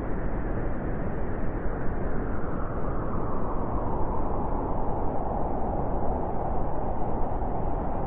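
Blizzard wind blowing in a steady, unbroken rush, with a slight rise in its higher part late on.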